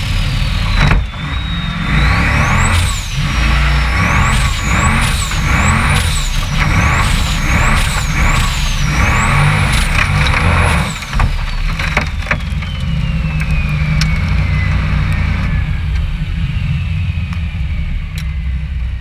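Off-road race car engine revving hard in repeated surges, with a high whine that rises and falls with each rev. About eleven seconds in come a few sharp knocks as the car tips over. After that the engine runs on more evenly while the whine winds down slowly.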